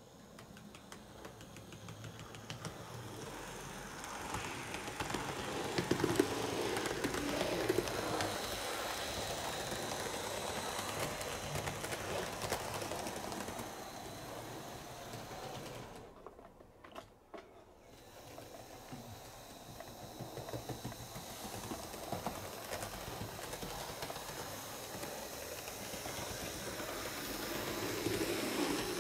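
HO scale Fleischmann model electric multiple unit running on track: a small motor's whirr and wheels clicking over the rail joints. It grows louder as the train comes near, fades almost away about two thirds in, then builds again near the end as it comes round once more.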